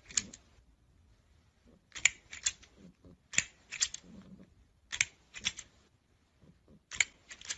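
Plastic crocodile snapper toy on an extending scissor arm, its jaws and hinges clacking in quick groups of two or three clicks about every second and a half.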